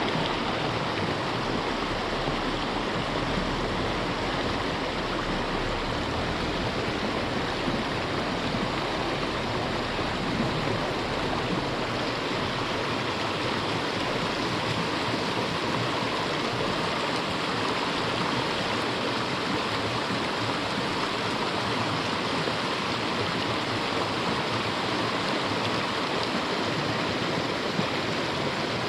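Creek water rushing steadily over a riffle.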